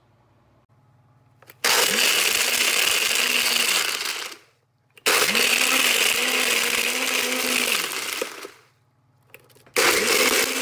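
Nutribullet blender run in three pulses of a few seconds each, grinding broken fused-glass pieces in water into frit. Each pulse starts with the motor spinning up and ends with it winding down, with a loud churning, grinding noise of glass and water in the plastic cup.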